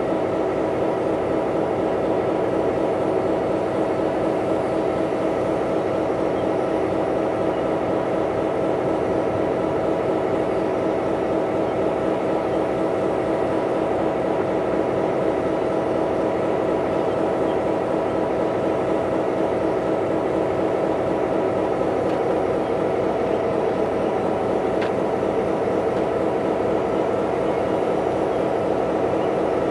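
BNSF diesel-electric locomotive idling, a steady engine drone with constant humming tones that does not change.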